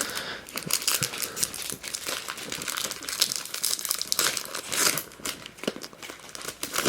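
Foil wrapper of a Pokémon trading card booster pack crinkling and tearing as it is opened by hand.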